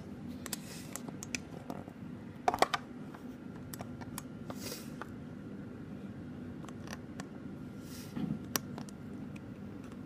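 Scattered clicks and knocks of a tripod being set up and adjusted, the loudest a pair of sharp clicks about two and a half seconds in. Behind them is the steady hum of the Dell OptiPlex 360 desktop running as it boots.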